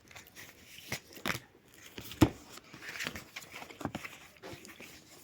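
Tarot cards being handled and laid down on a table: scattered papery rustles and light taps, the sharpest tap about two seconds in.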